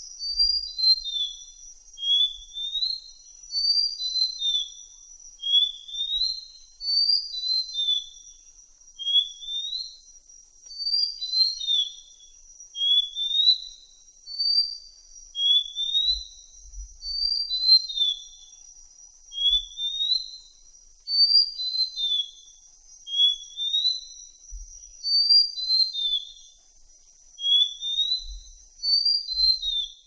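Malaysian blue flycatcher singing: phrases of a rising slurred whistle followed by a few clear high notes stepping down in pitch, repeated every two seconds or so. A faint steady thin high tone runs underneath.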